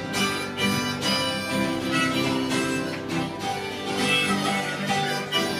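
Instrumental break in a country song: acoustic guitar strumming steadily under a held lead melody line, with no vocals.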